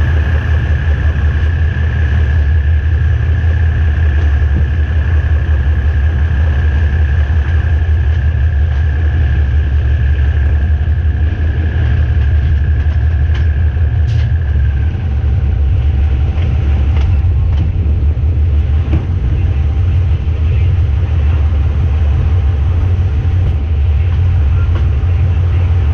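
GE diesel-electric shunting locomotive running with a steady low engine rumble and a high whine that stops about halfway through; a few sharp clicks and knocks come in the second half.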